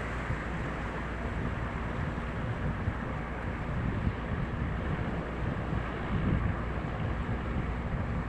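Wind buffeting the microphone in gusts over the steady low drone of a boat under way at sea.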